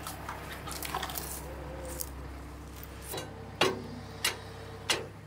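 Steel lifting chain and heavy steel parts clinking and knocking, three sharp knocks in the second half, over a steady low machinery rumble that drops a step about three seconds in.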